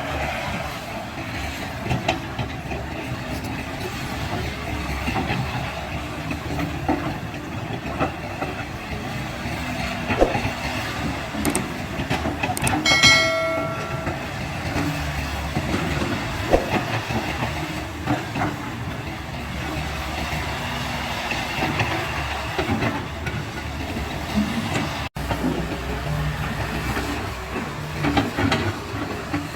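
Excavator at work: its diesel engine runs steadily under a hiss, with irregular metallic clanks and knocks from the tracks and bucket, and a brief high squeal about halfway through.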